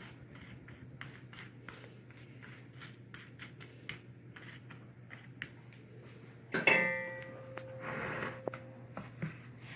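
Quiet handling of kitchen dishes and utensils: scattered light clicks and taps over a low hum, then about two-thirds of the way in a louder knock with a ringing tone that fades over a couple of seconds.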